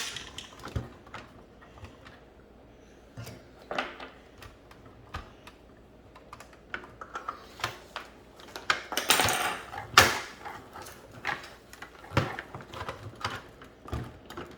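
Small plastic toy pieces being handled: irregular clicks and taps, with a denser scratchy rustle about nine to ten seconds in.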